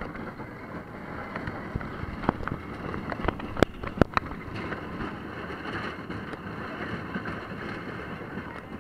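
Roller coaster train running on its track, a steady rumbling rush with wind buffeting the camera microphone, and two sharp knocks about three and a half and four seconds in.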